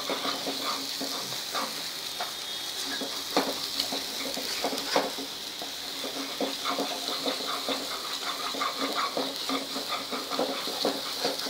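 Wooden spatula stirring and scraping a thick green chilli, garlic and coriander paste frying in oil in a kadai: frequent irregular soft scrapes and taps over a steady low sizzle.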